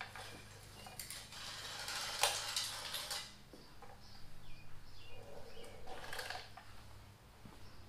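Mechanical handling noise from a bicycle on a work stand as the rear wheel with its new cassette is worked into the frame: two stretches of rustling and clattering, with one sharp click about two seconds in.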